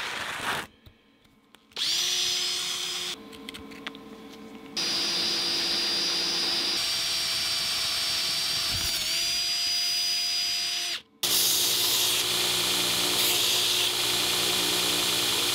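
Electric drill boring into metal, its motor whine steady apart from a brief dip in pitch as the bit loads up. After a sudden cut, a belt grinder runs with a louder, rougher sound.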